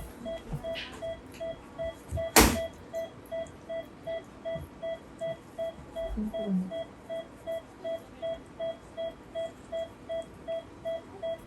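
Steady beeping of an anaesthesia patient monitor, one short pitched beep about twice a second, keeping time with the anaesthetized cat's heartbeat. A single sharp knock about two seconds in.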